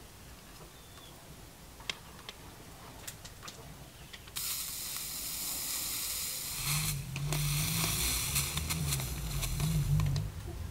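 A small gas torch's flame hissing steadily, starting suddenly about four seconds in, as it heats the solder foil under the copper strips; a lower rumble of the flame joins a couple of seconds later. A few light ticks come before it.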